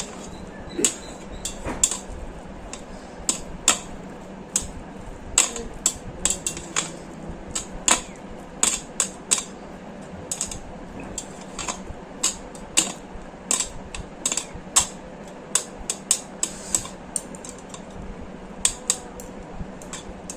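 A utensil clicking and scraping against a bowl as instant noodles are mixed with their sauce: many sharp, irregular clicks, a few each second.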